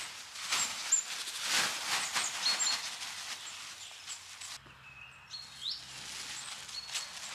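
A thin groundsheet being shaken out, its fabric rustling and flapping in repeated swells for the first few seconds, then quieter. Small birds chirp briefly throughout.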